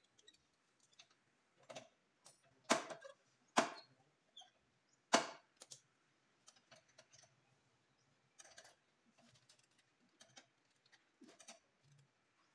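Irregular clicks and knocks of hand tools and plastic trim fasteners as a car's front bumper is unscrewed and unclipped, with a few louder knocks around the middle.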